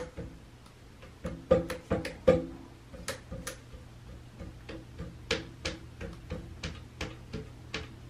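A bird's beak tapping on a perch: a run of sharp knocks, the loudest bunched about one and a half to two and a half seconds in with a short hollow ring after them, then lighter taps at about three a second.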